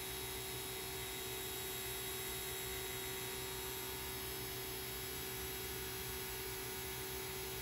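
Navac Break Free battery-powered 4 CFM vacuum pump running steadily with an even hum. It is pulling a deep vacuum near the end of an evacuation, with the line down to about 520 microns.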